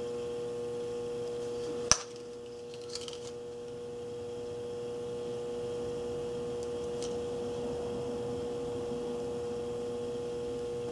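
A steady electrical hum held on one pure tone, with a single sharp click about two seconds in.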